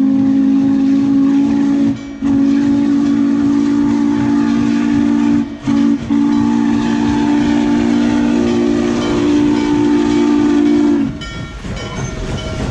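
Norfolk & Western 611's steam whistle, a J-class 4-8-4, blowing the grade-crossing signal as the locomotive approaches: long, long, short, long, a chord of several low steady tones. About 11 seconds in the whistle stops and the hiss of steam and the clatter of the running gear take over as the engine passes close by.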